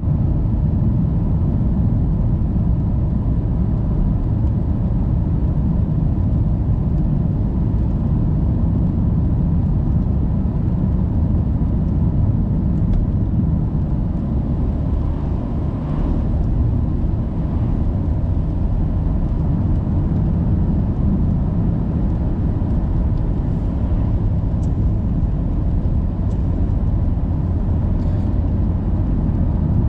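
Steady low rumble of a car being driven, with no change in pace.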